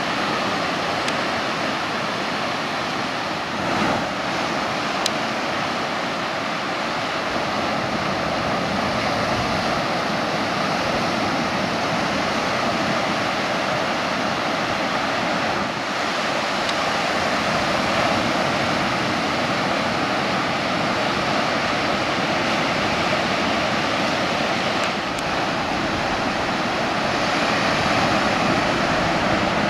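Ocean surf breaking on a beach: a steady, even rushing wash of waves.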